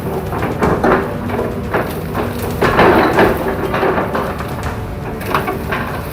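Bamboo stems cracking and splintering in a run of irregular snaps as an excavator crushes the clump, loudest about three seconds in, over the steady drone of the machine's engine.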